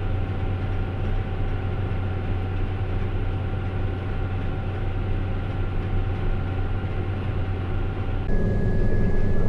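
Heavy harvest machinery running steadily: a low engine hum with a faint steady whine above it. A little after eight seconds it cuts abruptly to a louder machine sound with a higher whine.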